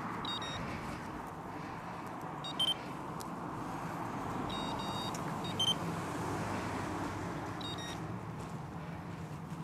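Steady road and wind noise of a bicycle rolling slowly along, with a few short high-pitched chirps or beeps, the loudest about two and a half and five and a half seconds in.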